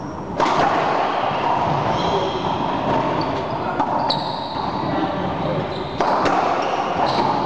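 Racquetball rally: the ball is struck by racquets and slams off the court walls and floor in a series of sharp knocks and pings, echoing in the enclosed court.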